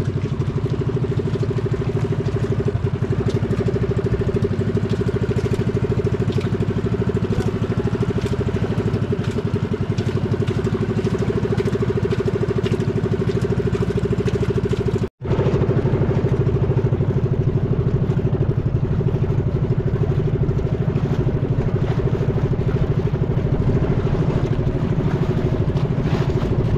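Small engine of a motorized outrigger boat (bangka) running steadily at cruising speed, with a split-second gap about halfway through.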